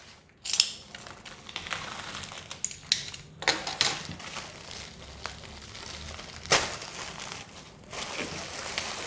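Product packaging being opened and handled by hand: irregular crinkling and rustling with a few sharp crackles.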